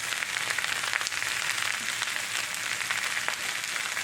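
Cabbage and sausage frying in a cast-iron skillet: a steady sizzling hiss scattered with small crackles.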